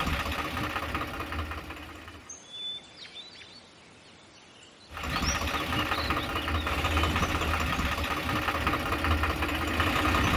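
A small motor runs with a steady low hum and rattle, then dies away. After a quiet gap with a few bird chirps, it starts up abruptly about five seconds in and keeps running.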